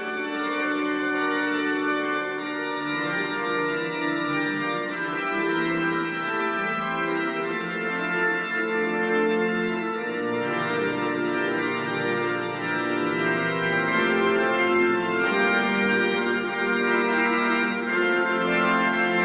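The great pipe organ of Passau Cathedral playing sustained full chords that change every second or so, with a deeper bass line coming in about halfway through. It is a phone recording made in the church, heard through a computer, so it sounds flatter than the live, enveloping sound.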